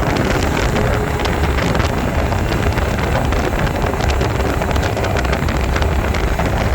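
Mercury 150 XR4 Black Max outboard running steadily as the boat moves across the water, with heavy wind buffeting the microphone.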